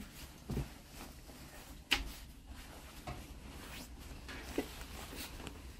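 Clothes being rummaged and pulled from a cabin wardrobe: faint cloth rustling with a sharp click about two seconds in and a lighter knock later on.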